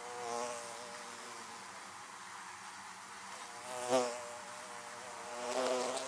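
Honeybees buzzing at a wooden hive entrance. The low hum swells three times as single bees fly close past, most sharply and loudest about four seconds in.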